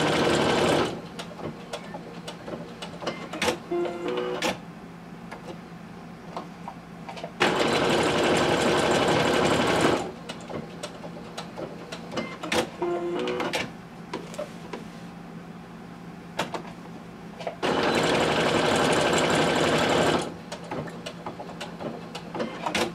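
Brother NQ470 sewing machine stitching a decorative stitch in short runs of about two and a half seconds, each forming one embroidered dot: one run ends about a second in, and two more start about 7 and 18 seconds in. Scattered light clicks are heard between the runs.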